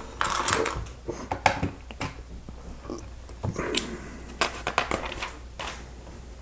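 Hard plastic LEGO bricks clicking and clattering, irregular sharp clicks as loose pieces are picked out of a pile and pressed onto the build.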